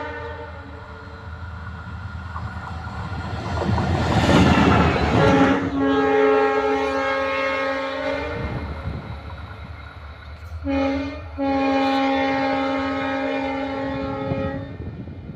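Indian Railways locomotive horn heard from inside the cab, sounding a long blast, a short toot, then another long blast, over the steady running noise of the moving train. A swell of rushing noise comes just before the first blast.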